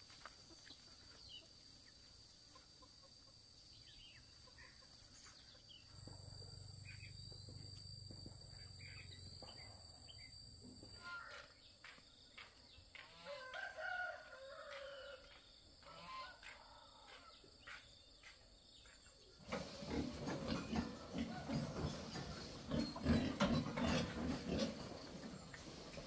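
A rooster crowing about halfway through, with faint bird calls around it and a steady low hum for about five seconds before it. From about three-quarters of the way through, pigs grunting and feeding at a feeder, the loudest part.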